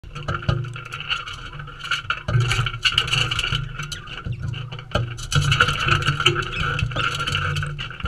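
Galahs feeding at a dish right beside the microphone: frequent sharp taps, knocks and scrapes of beaks and claws on the dish, over a steady droning hum.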